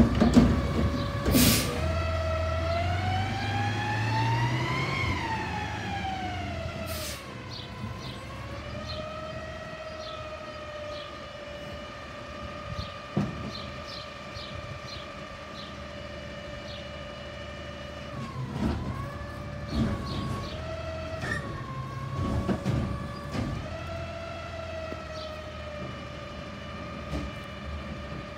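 Natural-gas garbage truck running its engine and hydraulics: a whine that climbs and falls as the engine revs in the first few seconds, then holds steady. It is broken by a few clunks and a short hiss.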